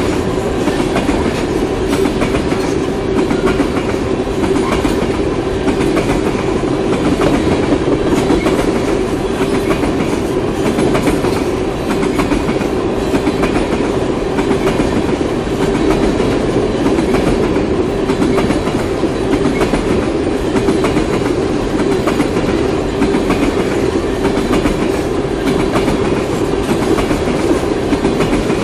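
Train cars rolling past at steady speed: a continuous rumble of steel wheels on rail, with a rapid run of clicks as the wheels cross rail joints.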